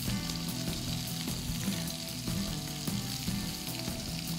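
Oil sizzling steadily in a frying pan, with light background music underneath.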